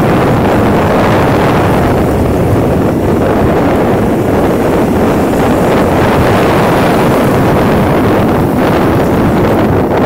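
Rough sea: surf breaking and foam washing up the sand, with strong wind rumbling on the microphone. The sound is loud and steady.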